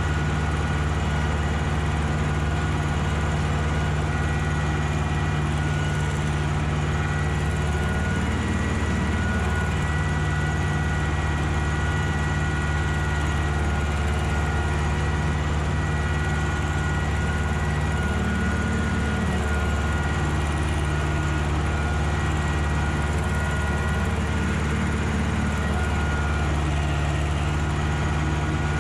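Ursus tractor's diesel engine running steadily while working a field, its note wavering briefly a few times.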